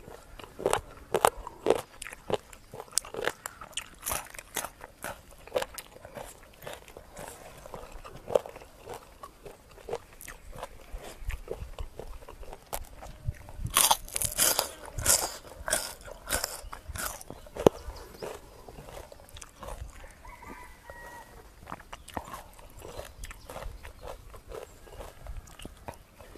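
Close-miked biting and chewing of spicy pounded chicken feet, with crisp crunches throughout that come thickest in a burst about halfway through.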